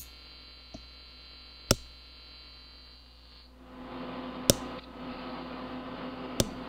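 The buzzing AC TIG arc on aluminum cuts off right at the start. What remains is a low hum and a faint hiss that grows louder after a few seconds, broken by three sharp single clicks.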